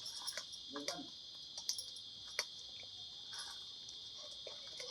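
Steady high-pitched insect chorus, with scattered sharp clicks over it.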